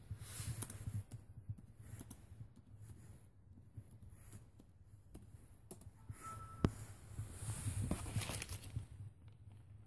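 Faint room tone with a low hum and scattered small clicks and rustles from the camera phone being handled, busiest about eight seconds in as it tilts. A short high beep about six seconds in ends in a sharp click.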